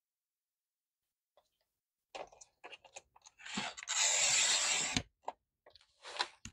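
Sliding paper trimmer cutting a sheet of painted paper in half: a few light clicks and paper handling, then the blade drawn down the rail in one steady scraping stroke of about a second that ends in a click. Near the end the cut paper slides across the trimmer.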